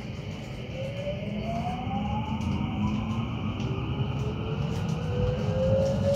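Electric commuter train accelerating out of a station, heard from inside the carriage. The traction motors' whine rises steadily in pitch over a rumble that grows louder.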